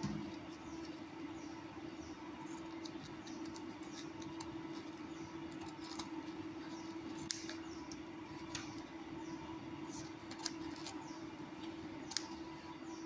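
Scissors snipping through the stiff edge seam of a disposable surgical mask: scattered, irregular sharp clicks over a steady low hum.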